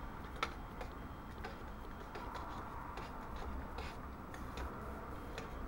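Metal spoon clinking and ticking against a steel mug while instant soup powder is stirred into hot water: one sharp click about half a second in, then scattered lighter ticks.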